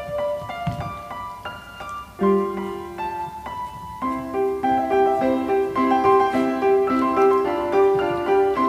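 Background piano music: a light melody of single notes, becoming busier and more regular partway through.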